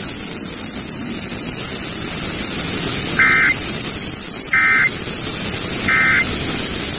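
Weather radio static hissing steadily, then three short, identical bursts of EAS SAME header data tones about a second apart, the digital header that opens a new emergency alert.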